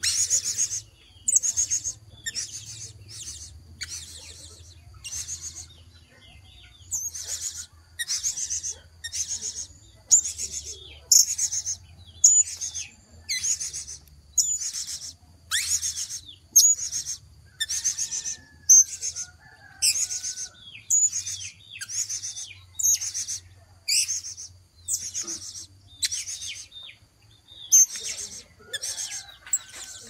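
Blue-crowned hanging parrot giving a long series of short, shrill, high-pitched calls, about two a second, with a brief pause a few seconds in.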